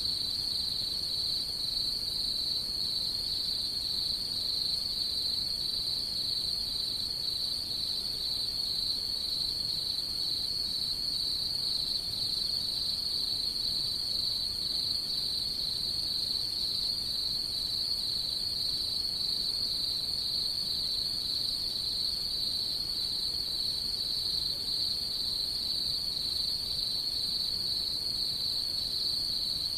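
Crickets singing at night in one unbroken high trill that pulses faintly and never pauses.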